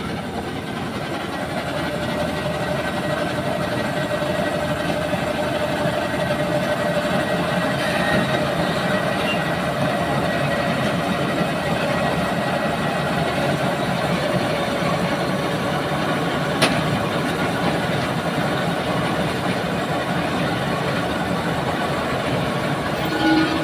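Heavy tow truck engine idling steadily, with a faint steady whine over it. A single sharp click about two-thirds of the way through.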